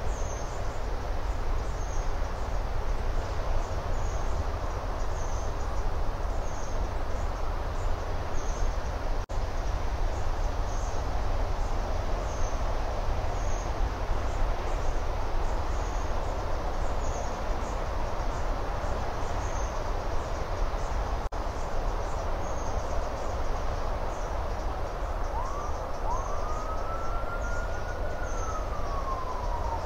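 Steady rushing outdoor background noise with a faint high chirp repeating about every three quarters of a second. Near the end a distant emergency-vehicle siren starts wailing, its pitch rising, holding, falling and rising again.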